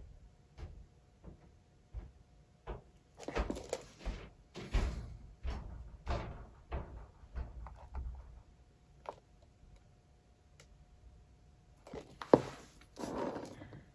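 A turntable holding a painted tile is handled and turned by hand: a run of low bumps, knocks and short rubbing scrapes, a quiet spell, then one sharp knock and a last scrape near the end.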